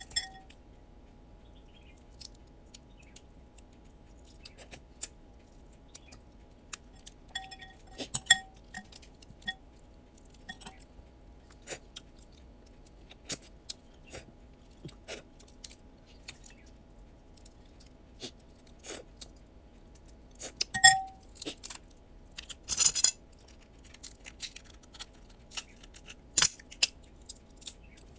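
Blue crab being eaten: scattered clicks, clinks and crunches as the shells are cracked with metal tools, along with chewing. There is a louder crackling crunch about 23 seconds in.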